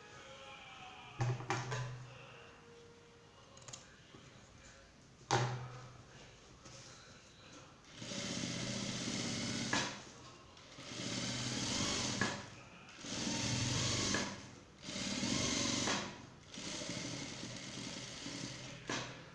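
Jack single-needle industrial sewing machine stitching fabric in stop-start runs: a couple of brief jolts in the first six seconds, then about five runs of a second or two each with short pauses between them.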